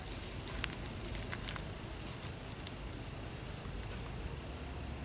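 Footsteps on a grassy pond bank with a few short sharp clicks, over a steady high-pitched whine.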